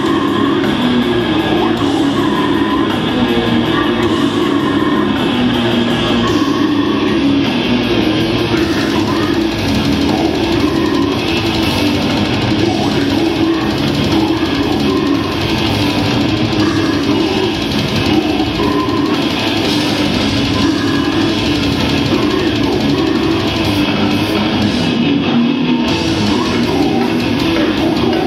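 Death metal band playing live and loud: heavily distorted guitars, bass and drum kit without a break, with a vocalist growling into the microphone.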